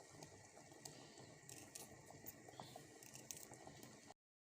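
Faint knife cuts through red garlic cloves: a few soft, irregular clicks and crunches over near silence. The sound cuts off to dead silence near the end.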